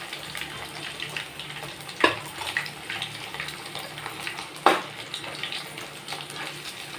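Chicken 65 pieces deep-frying in hot oil, crackling and sizzling steadily, the chicken well fried and ready to lift out. Two sharp knocks come about two seconds and about four and a half seconds in, the second the louder.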